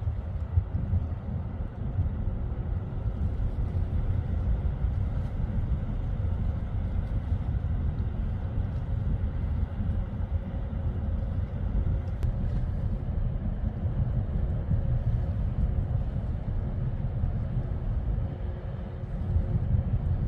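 Wind buffeting the microphone: a gusty, uneven low rumble, with a faint steady hum underneath.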